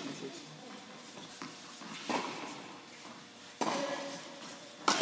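Tennis balls hit with rackets in an indoor tennis hall: about three sharp pops, the last and loudest near the end, each echoing around the hall.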